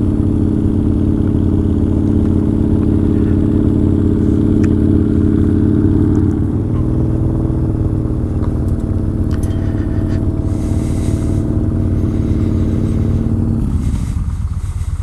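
Yamaha Bolt XV950R's air-cooled V-twin engine running steadily while riding. Its drone shifts in pitch about six and a half seconds in, and the higher tones fall away near the end.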